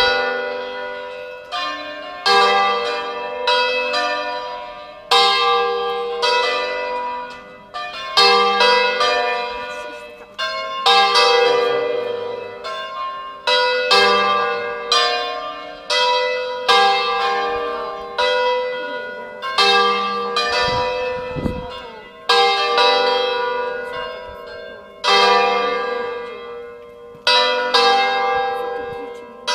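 Church bells rung full-circle by hand (a distesa) on ropes, from a post-war ring in G cast by Giacomo III Crespi of Crema. The bells strike in an irregular, overlapping sequence, a stroke every one to three seconds, each ringing on and fading into the next.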